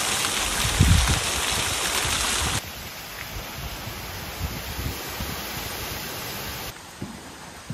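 Small stream of water trickling and splashing down a stone wall into a pond: a steady hiss that cuts off suddenly after about two and a half seconds, leaving a much quieter hiss of outdoor ambience.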